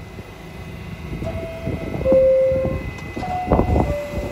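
Subway door-closing chimes, each a falling two-note ding-dong: one, then a second at a higher pitch, as from the two trains. A knock of doors shutting about three and a half seconds in, over the low rumble of the idling cars.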